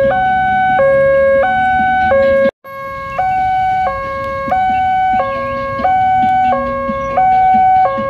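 Railway level-crossing warning alarm sounding a steady two-tone chime, switching between a higher and a lower tone about every two-thirds of a second. It cuts out briefly about two and a half seconds in, then carries on slightly quieter.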